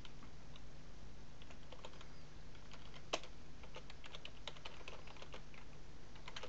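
Typing on a computer keyboard: irregular keystrokes with short pauses, one louder key about three seconds in, over a steady low hum.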